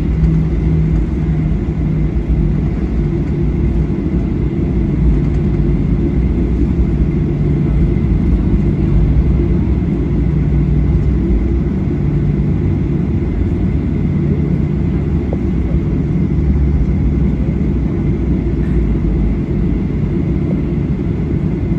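Boeing 737-800 cabin noise heard from a forward window seat: the CFM56 engines and airflow make a steady, loud rumble with a low hum running through it.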